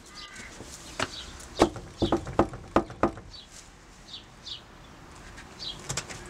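Knocking on a front door: one knock about a second in, then a quick run of about six sharp raps over the next two seconds. Birds chirp with short falling notes in the background.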